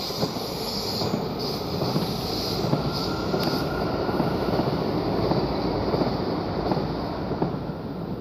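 A red Stuttgart S-Bahn electric multiple unit passing close by. Its wheels on the rails make a steady rumble with light clatter, building up and loudest midway.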